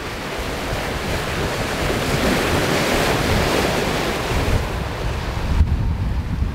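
Water rushing and foaming along the hull of a sailing yacht running fast through choppy seas, with wind buffeting the microphone. The rush swells about midway and eases a little near the end.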